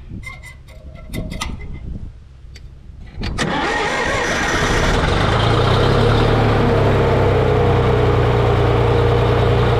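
John Deere backhoe's diesel engine starting: a few clicks, then it catches about three seconds in and settles into a steady idle.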